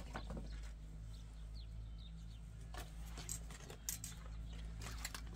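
Dry firewood sticks knocking and clicking against each other and the stone hearth as they are handled, a handful of sharp clicks spread out over a steady low rumble, with a few short bird chirps.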